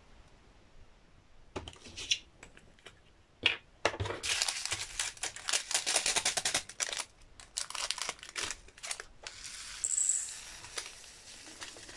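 Small plastic bag of round diamond-painting drills crinkling and rustling as it is handled and opened, with scattered clicks. Near the end the drills are tipped out of the bag into a small plastic pot.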